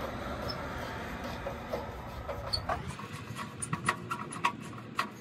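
Phillips screwdriver working the screw of a license plate light housing on a chrome bumper: a steady rushing background for the first few seconds, then a run of sharp, irregular metal clicks and ticks as the tool turns and knocks against the screw and housing.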